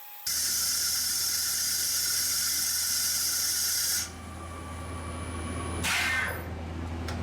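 Machine tool cutting cast iron with a CVD-coated carbide insert: a loud, steady hissing cut starts just after the beginning and stops about four seconds in, leaving the machine's steady low hum. A short, harsh burst of noise comes about six seconds in, and the sound cuts off abruptly at the end.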